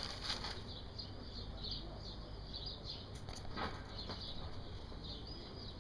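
Small birds chirping and twittering without a break, with a couple of faint clicks about three and a half seconds in.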